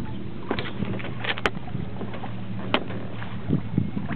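Water lapping and splashing against the hull of a 1969 O'Day Mariner sailboat moving under sail. Two sharp clicks come through, about a second and a half in and again near three seconds.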